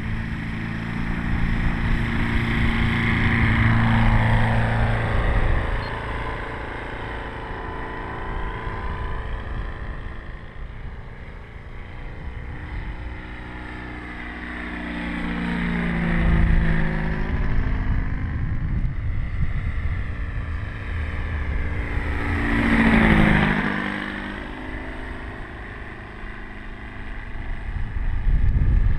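Valach VM120 B2-4T four-stroke twin engine and 30x12 propeller of a 40% scale Bo 209 Monsun model aircraft running under power in flight. It swells and fades as the plane passes, with a sharp drop in pitch on two close flybys, about halfway through and again near the end.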